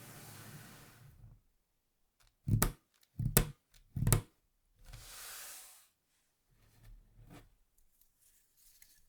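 Hard keyboard parts being handled on a desk: a sliding rustle, three sharp knocks about a second apart as pieces are set down, another slide, then a few softer knocks and faint ticks.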